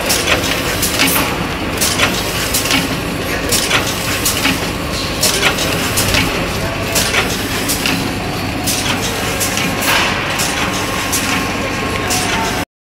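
Rotary bag-feeding packing machine running: a steady mechanical din with irregular sharp clacks, about two a second, from its moving grippers and indexing turntable. The sound cuts off abruptly near the end.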